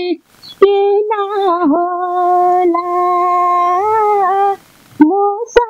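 A woman singing a Nepali Teej folk song without accompaniment. After a short breath she holds one long note for about four seconds, wavering slightly in pitch, then starts the next phrase near the end.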